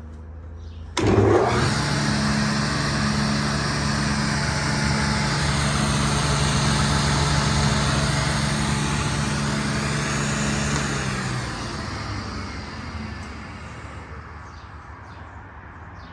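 Table saw, with its dust collector connected, switched on for a test run. The motor starts suddenly about a second in, runs with a steady hum and whir for about ten seconds, then is switched off and winds down gradually.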